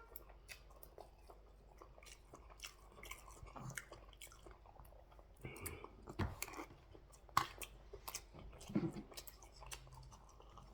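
A person chewing and biting food close to the microphone: irregular wet mouth clicks and smacks, with a few brief low hums.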